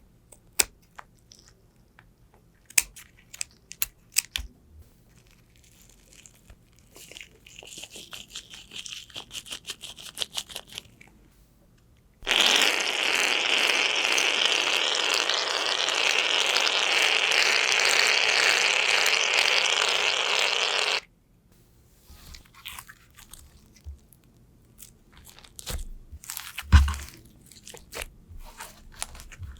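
Slime being squeezed and pressed by hand, giving sharp clicks, crackles and crunchy pops. In the middle a loud steady hiss runs for about nine seconds, then stops suddenly before the crackling resumes.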